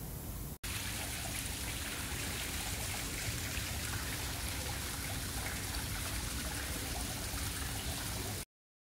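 Steady rush of running water, continuous and even, cutting out briefly about half a second in and stopping abruptly near the end.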